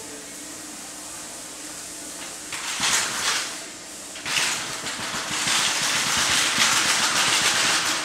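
Compressed air hissing loudly in two spells, a short one about two and a half seconds in and a longer one from about four seconds, over a steady low hum.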